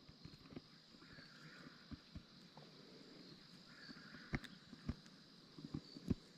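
Faint, scattered knocks and clicks, a handful of them with the sharpest about four and six seconds in, over a steady high-pitched insect chirring outdoors.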